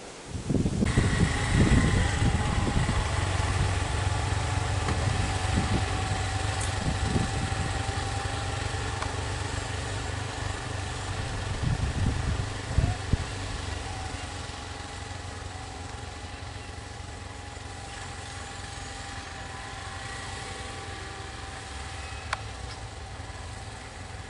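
Motor vehicle engines idling steadily. The sound starts abruptly about a second in and slowly fades.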